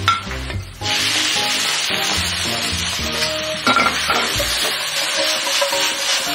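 Shredded potatoes sizzling in a hot wok as a metal spatula stirs and tosses them. The steady frying hiss starts about a second in. There is one short clank of the spatula against the wok partway through.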